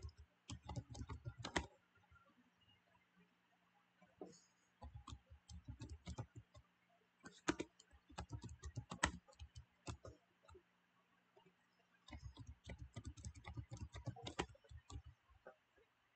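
Computer keyboard typing, faint, in three bursts of keystrokes separated by short pauses.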